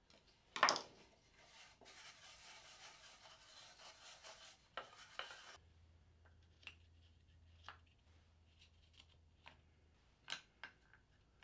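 A sharp click, then a few seconds of scraping as a thin metal tool works in a hole of a plywood gear. After that come light wooden clicks and a louder knock near the end as plywood gears are set into their pockets in a plywood wrench body.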